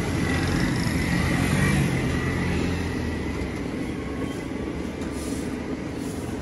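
Street traffic with a vehicle engine running close by, a steady low rumble that is loudest for the first two or three seconds, then eases off a little.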